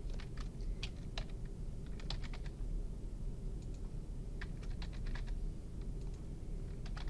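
Computer keyboard being typed on in several short bursts of keystrokes as single words are entered, over a steady low background hum.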